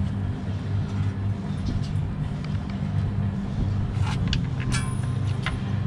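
A steady low machinery hum with a few sharp metal clinks about four to five and a half seconds in, one ringing briefly, as the bolts and the split steel chain sprocket are handled on the conveyor shaft.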